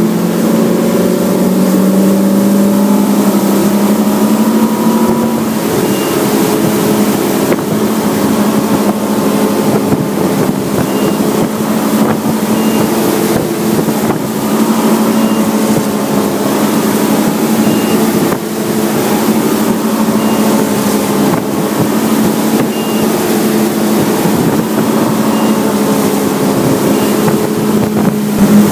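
Ski boat's inboard engine running steadily at towing speed, with a rush of wind and water spray over it.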